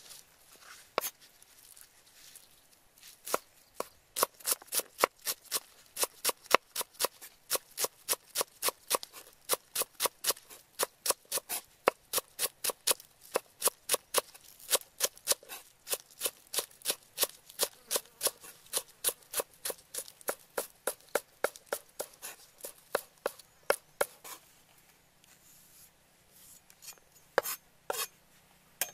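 Cleaver chopping green onions on a thick round wooden chopping block. After a few single chops it becomes a steady run of sharp knocks, about three or four a second, then slows to a few single chops near the end.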